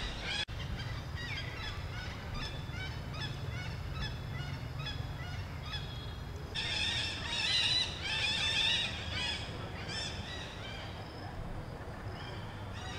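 Many short, high-pitched animal calls overlapping one another, loudest from about six and a half to nine seconds in, over a steady low rumble.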